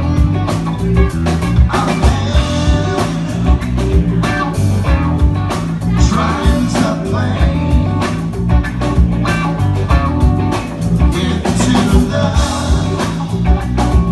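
Band playing a rock groove: drums keeping a steady beat under a repeating bass line, with guitar.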